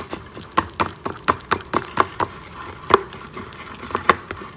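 Mug-bread batter being whisked by hand in a mixing bowl: the utensil clicks against the side of the bowl about three times a second, in an uneven rhythm.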